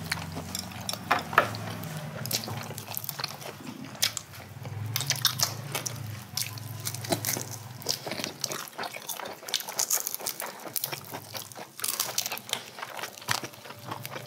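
Close-up eating sounds of roasted chicken being bitten and chewed: irregular wet mouth clicks and small crunches.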